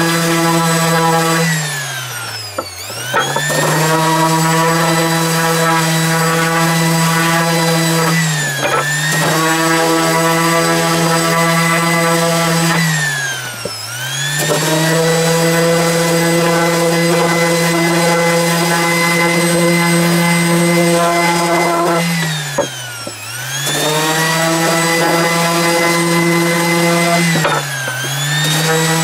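Electric power tool motor running at a steady high whine, its pitch and level dipping briefly and recovering five times.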